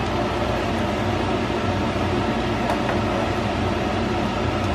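Steady whirring noise of a fan running over the stove, with a faint click or two of metal tongs against a skillet as pasta is tossed in sauce.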